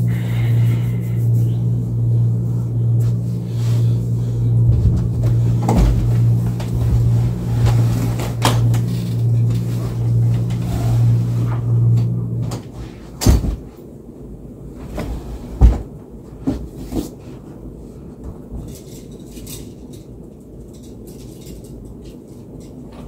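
A steady low hum that cuts off about halfway through, then a closet door being opened with a few sharp knocks and thumps, the loudest a little after, followed by faint handling sounds at the closet.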